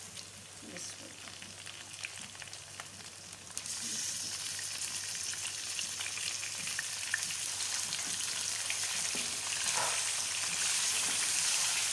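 Raw chicken pieces sizzling and crackling in hot ghee with fried onions in a kadhai. The sizzle jumps sharply louder about four seconds in and keeps building after that.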